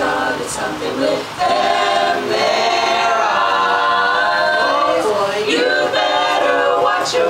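Women's vocal group singing together a cappella, several voices holding sustained notes.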